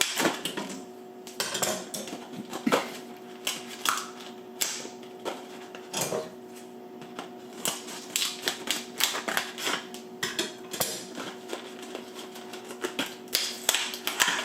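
Packaging of a replacement kitchen faucet spray head being opened and handled: irregular plastic clicks and crinkles, over a faint steady hum.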